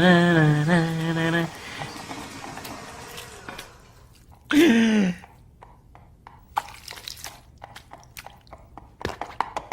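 A voice holding a sung note for about a second and a half, a short falling vocal sound near the middle, then scattered light clicks and taps.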